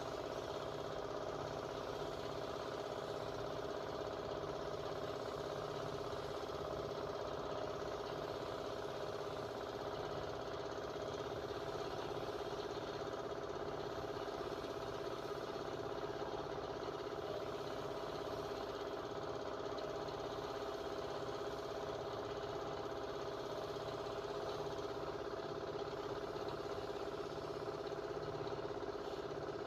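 A machine motor running with a steady, unchanging hum.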